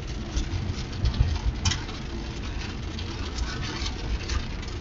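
A moving car heard from inside the cab: a steady low road and engine rumble with scattered small rattles and one sharp knock just under two seconds in.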